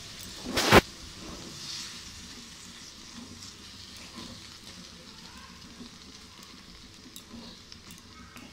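Spiced potato, onion and tomato masala sizzling in a non-stick kadai while a wooden spatula stirs and scrapes through it, the masala being fried down with a little water. One sharp knock less than a second in.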